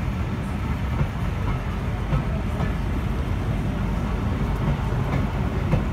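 Passenger coaches of a steam-hauled train rolling past close by: a steady low rumble with a few light wheel clicks.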